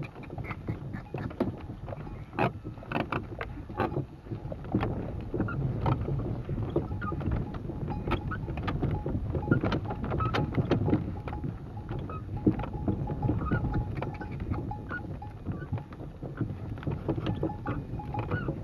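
Irregular creaking and knocking of a camel's wooden saddle and tack as the camel walks, over a low rumble of wind on the microphone.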